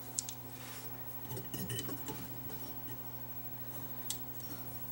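Small clicks and clinks of the glass magic eye tuning-indicator tube and its metal mounting as it is handled and pushed back into place: a couple of ticks at the start, a cluster about a second and a half in, and one sharp click near the end.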